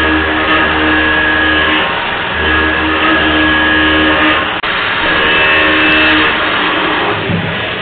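A UDM-2216 three-axis CNC machining center milling a large metal plate: a steady cutting drone with a high whine above it. The low part breaks off and resumes about every two seconds, and there is one sharp click near the middle.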